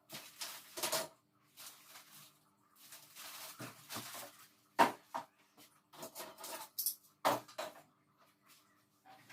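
Hands working on a bandsaw: a run of clattering, scraping and rustling handling noises, with two sharp knocks about five and seven seconds in.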